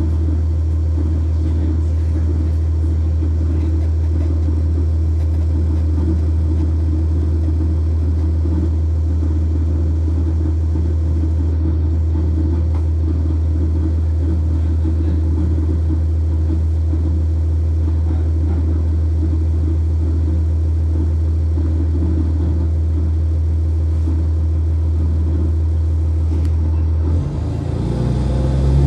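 Diesel city bus (a NovaBus RTS with a Cummins ISC inline-six diesel), heard from on board, running with a steady, even engine drone. Near the end the engine note steps up and climbs in pitch as it revs up.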